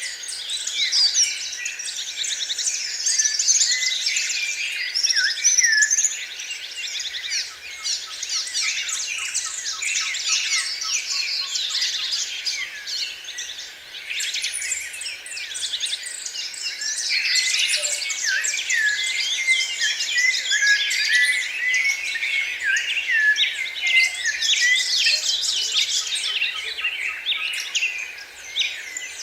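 Several songbirds singing at once: a dense, continuous chorus of overlapping high chirps, quick trills and short whistled glides.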